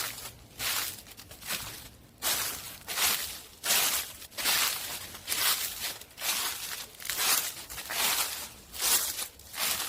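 Footsteps crunching through dry fallen autumn leaves at a steady walking pace, a crisp crackle with each step.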